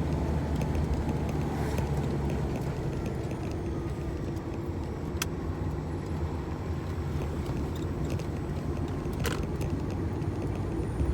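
Heavy tractor-trailer's diesel engine running steadily, with two brief sharp clicks about five and nine seconds in.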